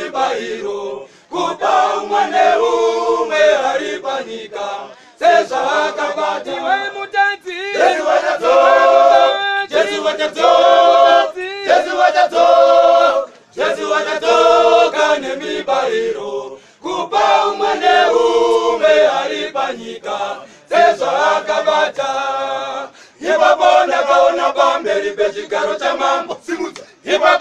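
A men's choir singing a Shona gospel song a cappella, in short phrases broken by brief pauses.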